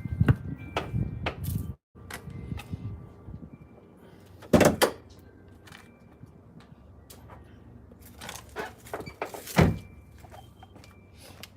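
Knocks and clunks of hands-on work on a car, with two loud, sharp thunks: one a little before halfway and one near the end.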